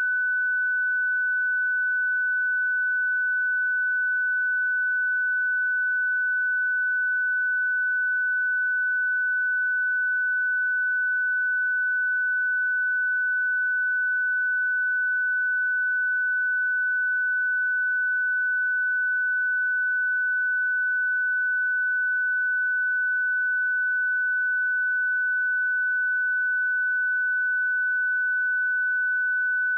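A pure 1496 Hz sine-wave test tone, one steady pitch held without change at a constant level.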